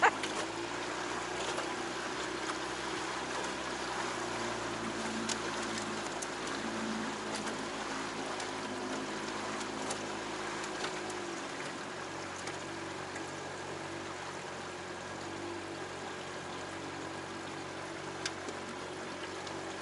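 Small jon boat under way: a steady motor hum with water rushing and trickling along the hull. The low rumble drops away about halfway through.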